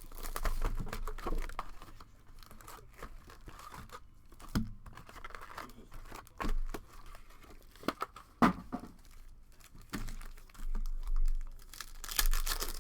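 Sealed trading-card packaging being torn open, with crinkling plastic wrap and foil in irregular rustles and sharp rips.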